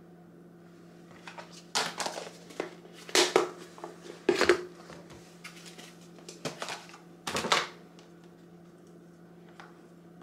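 Plastic food containers and a snap-on lid being handled on a counter: a handful of short sharp plastic clicks and clatters spread over several seconds, over a faint steady low hum.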